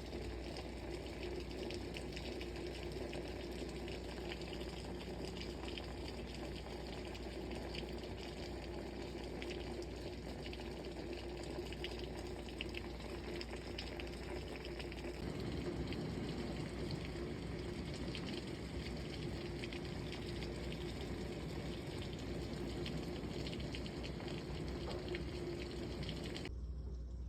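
Rain pouring steadily, a dense patter and splash of water, growing heavier and deeper from about halfway through.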